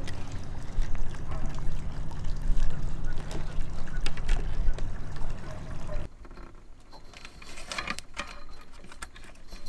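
Rustling and light clicks of bundled electrical wires being pulled through a hole in a sailboat's deck, over a steady low outdoor rumble; about six seconds in this cuts to a quieter background with a few soft handling rustles.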